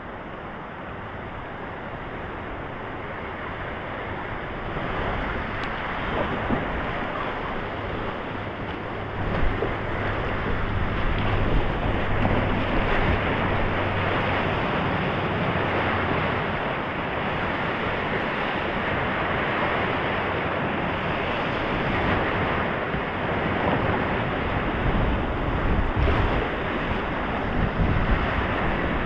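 Rushing whitewater of a flooded creek heard from a kayak running the rapids, with wind buffeting the microphone. The rush grows louder over the first ten seconds or so, then holds steady.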